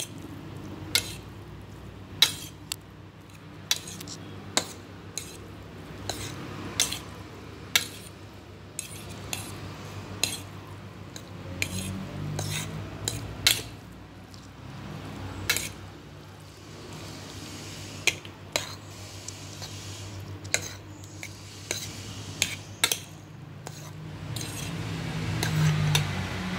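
Metal fork stirring sauced instant noodles on a ceramic plate, clinking and scraping against the plate with a sharp tap roughly once a second.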